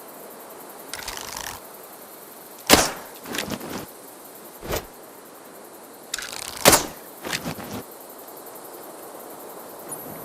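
Two bow-and-arrow shots, each a short rustle followed by a sharp, loud snap and a few smaller knocks, the first snap about three seconds in and the second about seven seconds in.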